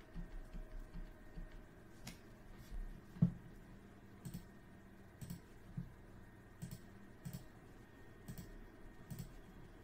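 Computer mouse and keyboard clicks: scattered single clicks, about one a second, with one louder, heavier click a little over three seconds in.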